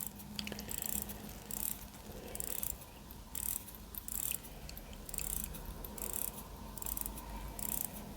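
Mechanical wristwatch, a Dornbluth 99.9, being hand-wound at the crown: faint ratchet clicking of the winding mechanism in short repeated strokes, about one every half to three-quarters of a second.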